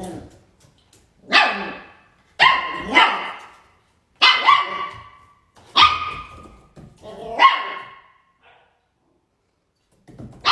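Puppy barking in a run of about seven short, high-pitched yaps, one or two a second.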